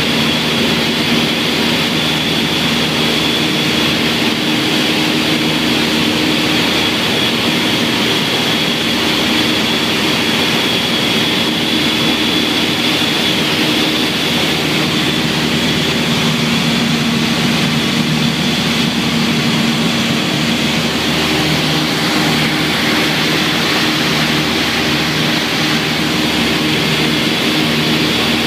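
Twin piston engines and propellers of a light twin running steadily at high power in the climb-out after a go-around, heard inside the cabin as an even drone with a thin high whine above it.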